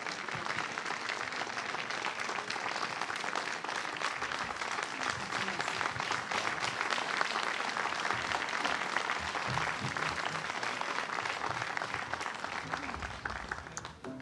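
Audience applauding steadily, a dense patter of many hands clapping, which dies away near the end.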